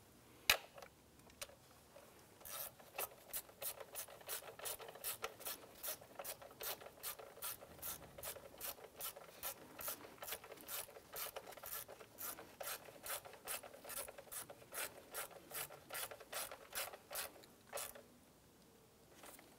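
Hand socket ratchet on an extension clicking steadily, about three clicks a second, as a bolt is snugged down on the engine. The clicking starts a couple of seconds in and stops near the end.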